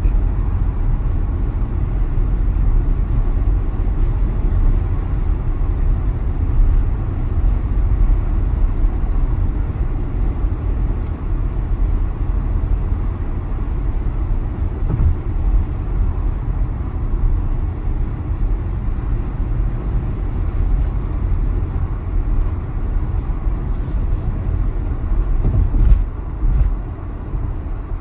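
Inside a 2022 Tesla Model Y while driving: steady, low road rumble and wind noise in the cabin, with no rear-motor whine.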